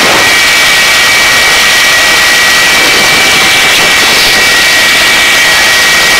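Helicopter turbine engine running at a hover: a loud, steady rushing noise with a high, steady whine.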